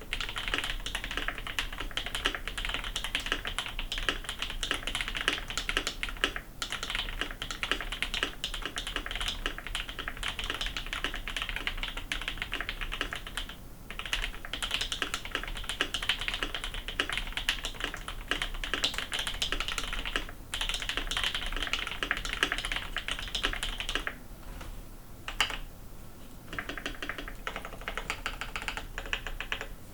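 Typing test on an Idobao ID80 mechanical keyboard with Durock L-Series Smoke linear switches and doubleshot ABS keycaps: rapid, continuous keystrokes with a few short pauses.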